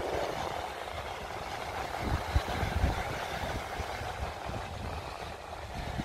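Surf breaking and washing up on a black-sand beach, a steady rushing hiss, with low wind rumble on the microphone that gusts about two seconds in.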